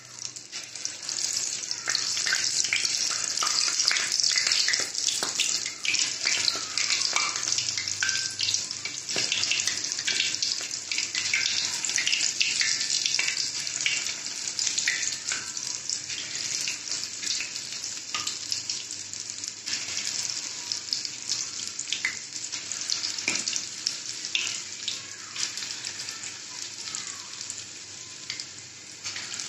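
Batter-coated paneer bread pakoras deep-frying in hot oil in a kadai: a steady sizzling hiss full of crackles and pops. It is loudest in the first few seconds after the pieces go in and eases a little toward the end.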